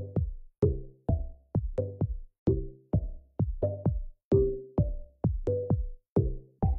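Background music: an electronic track with a steady drum-machine beat and short low pitched notes on the beats.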